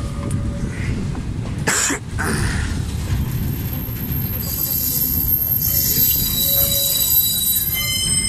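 Slow-moving train of empty open freight wagons rolling past, with a steady rumble of wheels on rails. There is a brief loud burst of noise about two seconds in, and from about halfway the wheels squeal in several high, steady tones.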